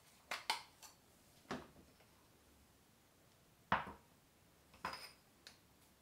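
Makeup containers and tools being picked up and set down on a bathroom counter: a scattering of light clicks, knocks and small clinks, about seven in all, the loudest a little past halfway.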